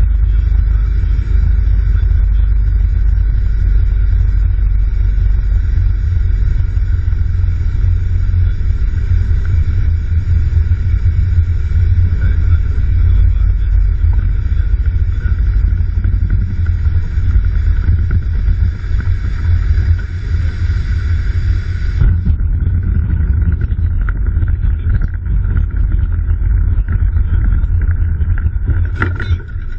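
Steady, loud cabin rumble of a single-engine light aircraft: engine and propeller drone mixed with airflow, picked up by a cockpit-mounted camera. The high hiss drops away abruptly about two-thirds of the way through, while the low rumble carries on.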